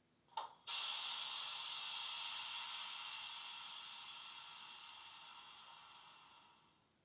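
A Loksound 5 DCC sound decoder in a model Class 24 diesel, running a Class 25 sound file through a small sugarcube speaker, plays a short click and then a steady hiss like air being released, which slowly fades away.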